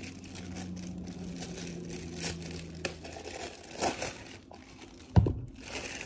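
Clear plastic packaging bag crinkling and rustling as it is handled and opened, with a single dull thump about five seconds in.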